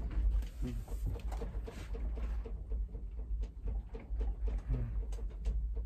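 A room creaking and small objects rattling as the building shakes in an earthquake: fast, irregular clicks and ticks over a low rumble.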